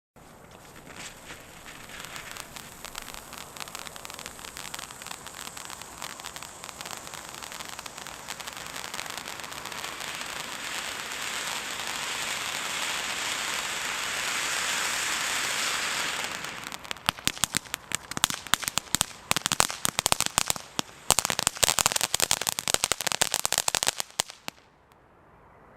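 Firework fountain burning: a steady hiss of spraying sparks that grows gradually louder for about sixteen seconds. It then turns into dense crackling pops for about eight seconds and dies out shortly before the end.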